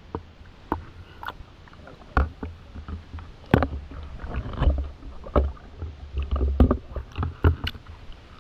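Water splashing and sloshing around a waterproof action camera, with irregular sharp knocks and heavy low thuds against its housing, about a dozen over the few seconds.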